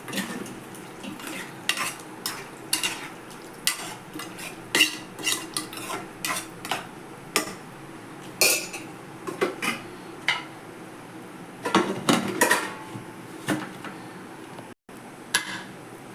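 A spoon stirring chicken gravy in a cooking pot, with irregular clinks and scrapes against the pot over a steady faint hiss.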